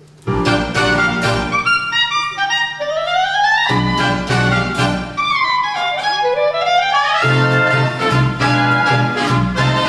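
An orchestral song intro starts suddenly just after the beginning: repeated upward sweeping runs of notes over a pulsing bass.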